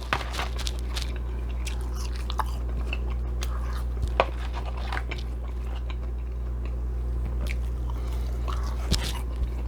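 A person chewing food close to the microphone: wet mouth sounds and scattered small crunches and clicks, over a steady low hum.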